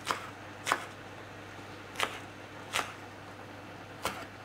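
Chef's knife slicing spring onion on a wooden cutting board: five separate strokes, each a sharp tap of the blade on the board, unevenly spaced from about half a second to over a second apart.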